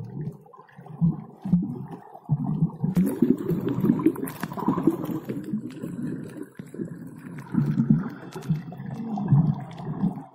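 Low, uneven water rumbling and gurgling, a few pulses each second, with a louder hissing stretch about three to five seconds in.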